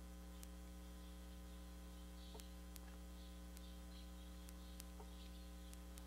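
Near silence: a steady electrical hum with a few faint, scattered ticks.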